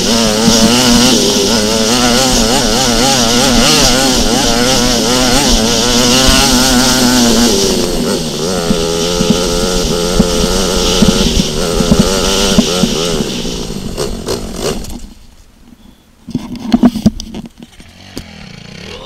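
Dirt bike engine revving up and down as it is ridden hard over a motocross track, its pitch rising and falling. The engine fades out about three quarters of the way through, followed by a few sharp, loud knocks.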